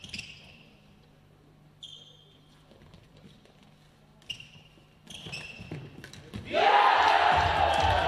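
A hushed sports hall with a few short, high-pitched sounds from the court. About six and a half seconds in, loud cheering and shouting from players and fans breaks out as the penalty shot is stopped.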